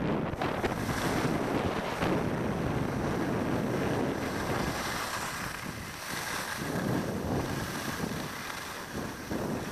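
Wind buffeting the microphone of a camera carried by a moving skier, mixed with the hiss and scrape of skis sliding over snow. The rushing eases briefly about five seconds in, then picks up again.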